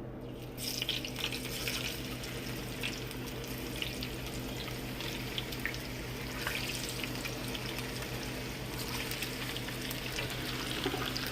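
French fries going into hot frying oil, sizzling steadily with scattered crackles from about half a second in.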